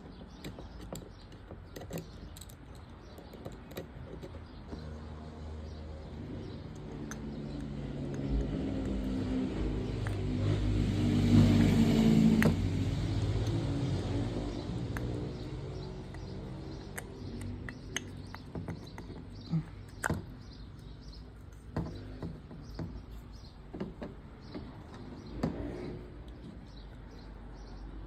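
A motor vehicle passes, its engine swelling up to a peak about halfway through and then fading away. Scattered light clicks and taps sound throughout.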